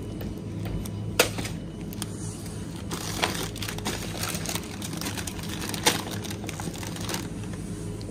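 Plastic food packaging crinkling and rustling as it is handled and picked up off a tiled floor, with a few sharp knocks, the loudest about a second in and another near six seconds. A steady low hum runs underneath.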